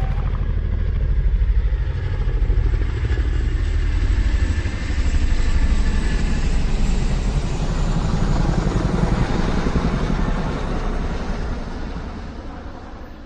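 Bass-boosted motor vehicle engine sound effect: a deep, fast, pulsing engine note running steadily, then fading away over the last couple of seconds.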